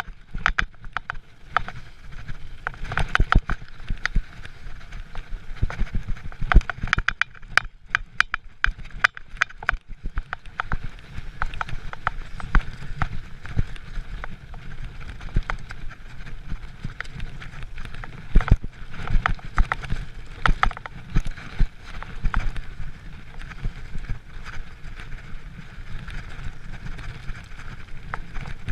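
Giant mountain bike riding fast down a rough dirt trail: tyres rumbling over the ground, with frequent irregular rattles and knocks as the bike hits bumps and roots.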